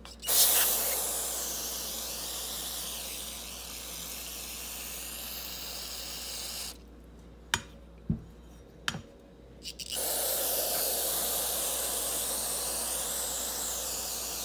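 Aerosol carb cleaner sprayed through its red extension straw into a Holley 4412 two-barrel carburetor: a long, even hiss of about six and a half seconds, a few light knocks in the pause, then a second long hiss from about ten seconds in.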